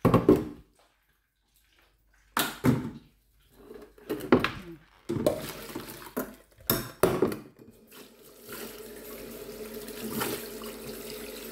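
Pot and strainer clattering as boiled spinach is tipped into a mesh strainer in a sink, with several separate knocks. About eight seconds in, a tap starts running steadily onto the spinach as a hand rinses it.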